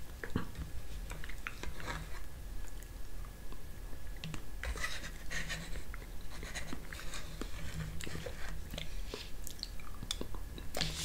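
Metal spoon scraping and clicking against a small plastic cup as soft gelatin is scooped out, with quiet eating sounds as a spoonful is taken near the end. A faint steady hum runs underneath.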